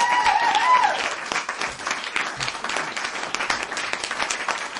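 Audience applause with voices cheering in the first second, slowly dying down.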